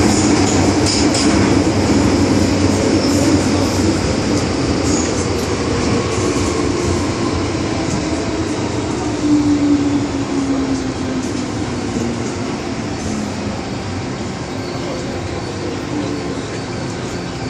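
MTR M-Train electric multiple unit running through a tunnel, heard from inside the passenger car: a steady rumble of wheels on rail, with a whine that drops in pitch around the middle. It grows a little quieter toward the end.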